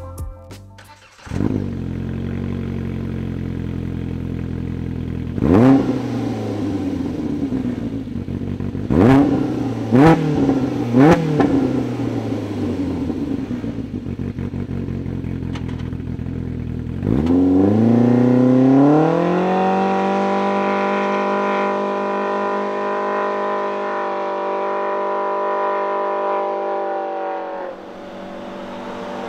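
Polaris RZR Pro R's 2.0-litre four-cylinder engine through an MBRP Performance Series dual-tip exhaust. It idles steadily, takes four quick throttle blips, then climbs to a high rpm and holds it for about ten seconds before dropping back near the end.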